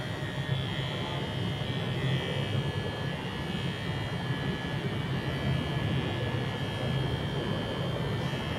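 Electric hair clippers running with a steady buzz as they cut a boy's hair.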